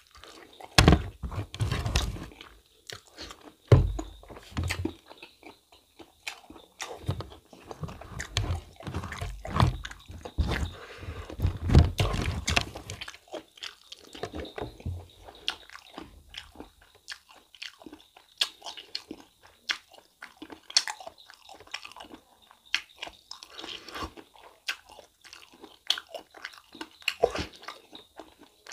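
Close-miked chewing of a mouthful of mutton innards curry and white rice, with wet smacking clicks. Heavy chewing with low thuds fills the first half, then lighter, sparser chewing clicks follow.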